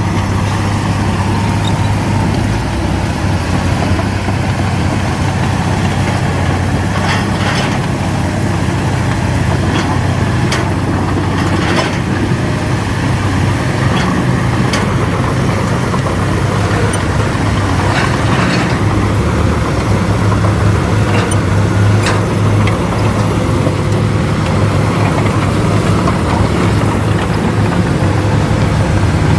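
Shantui DH17C2 bulldozer's heavy diesel engine running steadily under load, with short sharp knocks now and then.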